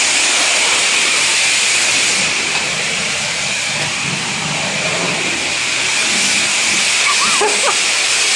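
High-pressure spray wand at a self-serve car wash blasting water: a loud, steady hiss.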